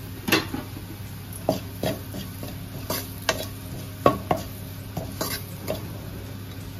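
A spatula stirring a dry onion and spice mixture in a metal kadai, scraping and knocking against the pan in irregular strokes every half second to a second, over a steady low hum.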